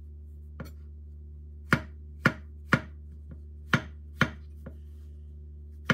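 Chef's knife slicing button mushrooms on a wooden cutting board: sharp knocks of the blade striking the board, about six loud ones in small runs about half a second apart, with a couple of fainter taps between.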